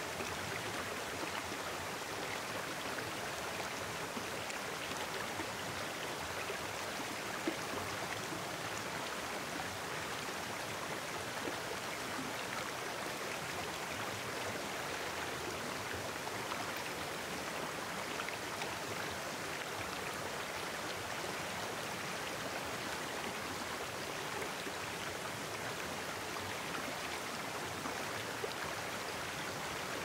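Shallow mountain stream babbling over granite boulders: a steady, even rush and splash of water.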